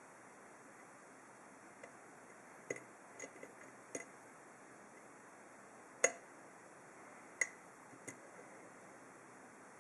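Single-pin picking of an ASSA seven-pin oval lock cylinder with a hook pick and tension wrench: about eight small sharp clicks at irregular intervals as the pick works the pins, the loudest about six seconds in.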